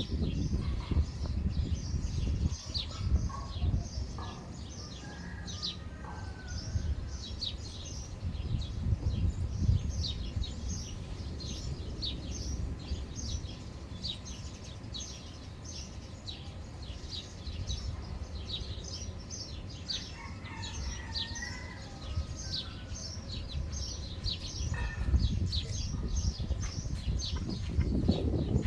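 Many small birds in a tree chirping continuously: dense, rapid, short high chirps that overlap without a break. A few lower calls come through about five seconds in and again near twenty seconds, over a steady low rumble.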